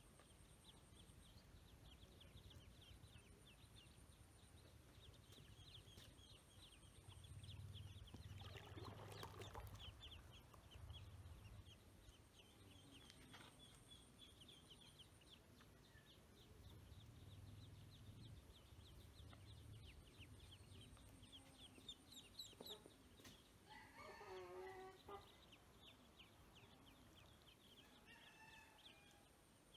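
Faint, rapid, high-pitched peeping of ducklings, chirp after chirp. Twice a louder, lower bird call cuts in, once about a third of the way in and once near the end.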